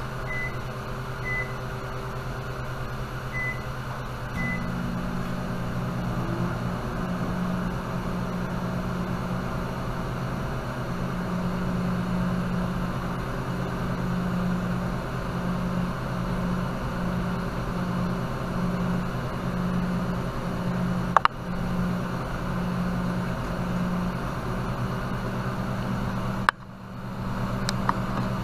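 A few short electronic beeps in the first seconds, then a steady electrical appliance hum that grows fuller about four seconds in and runs on, with a sharp click about three-quarters of the way through and another near the end.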